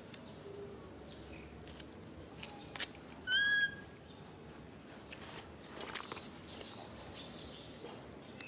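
A single short, high, clear call, about half a second long, a little over three seconds in, with faint rustling and clicks around the six-second mark.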